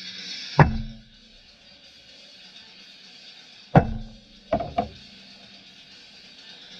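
Hammer striking metal: two loud blows about three seconds apart, each leaving a short low ring, then two lighter knocks in quick succession.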